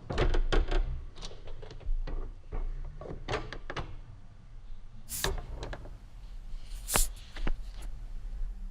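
Typewriter keys clacking in an irregular run of sharp strikes. A quieter stretch follows, then two louder, brighter clacks about five and seven seconds in.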